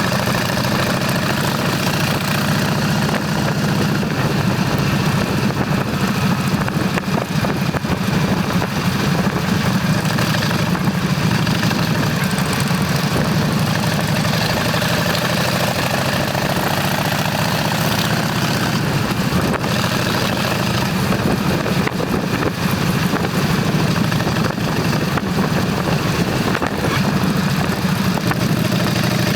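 Motorcycle engine running steadily under a constant rush of noise, holding an even note throughout.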